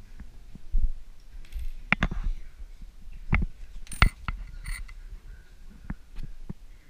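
Coins being handled and set down on a hard countertop: a string of clicks and clinks, the loudest about four seconds in with a short metallic ring.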